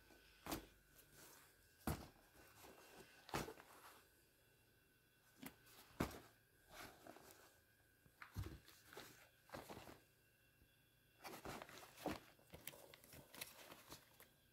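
Faint handling noise from a pile of used sneakers: irregular soft knocks and rustles as shoes are picked up, turned over and bumped against each other.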